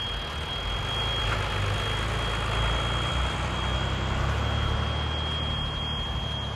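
Heavy machine, most likely an excavator working a cutter-wheel attachment, running steadily with a deep engine rumble and a constant high whine.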